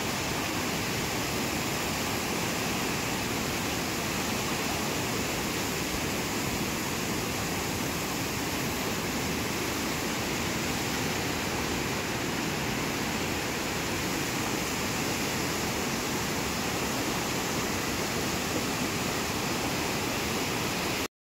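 A muddy mountain river in full flood, its fast water rushing with a steady, even noise that cuts off suddenly near the end.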